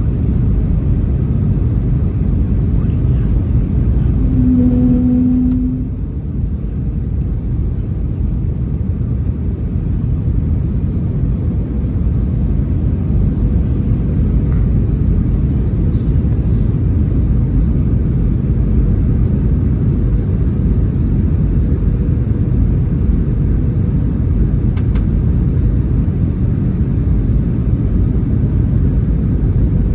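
Steady, loud rumble of an Airbus A321neo's engines and airflow heard inside the cabin on final approach. A short tone sounds about five seconds in.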